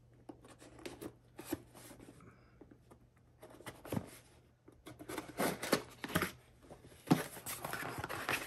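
A small cardboard box being cut open and handled: scattered scratches and taps, then a denser run of rasping scrapes over the last few seconds, with one sharp loud snap a little after the seven-second mark.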